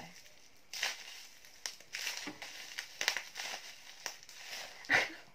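Fingers scratching and rubbing right at the grille of a BM-800 condenser microphone, ASMR-style: a string of short, irregular scratchy rustles, the loudest near the end.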